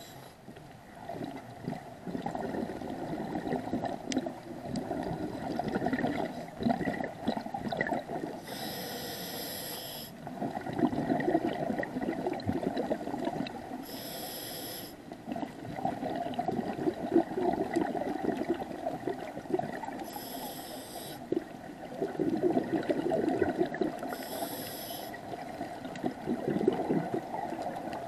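Scuba diver breathing through a regulator underwater: four short hissing inhalations come about every five seconds, with crackling, bubbling exhalation noise between them.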